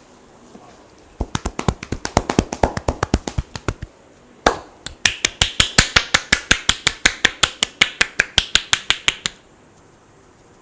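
Rapid percussive hand strikes on a head during an Indian head massage, about nine or ten quick taps a second. A first run of duller taps, a single sharp slap about four and a half seconds in, then a longer run of crisper clapping strikes that stops abruptly near the end.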